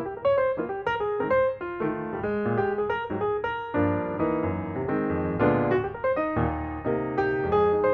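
Background piano music, a lively melody of quickly struck notes over a bass line.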